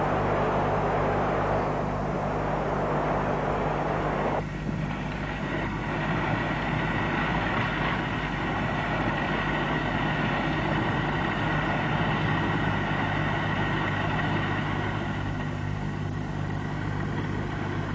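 A jet of sand-and-water slurry spraying out of a discharge pipe, a steady rushing hiss. About four seconds in it cuts suddenly to pumping machinery running steadily with a low hum.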